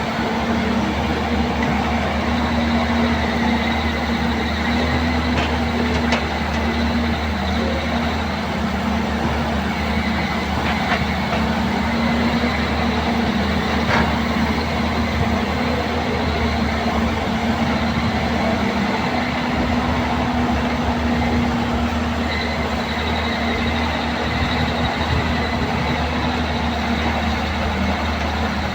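A motor running steadily with a constant hum and a faint high whine, with a few light clicks.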